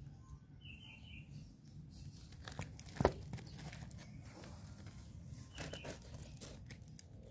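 Faint rustling and scattered small clicks, with one sharp knock about three seconds in and a short high chirp near the start.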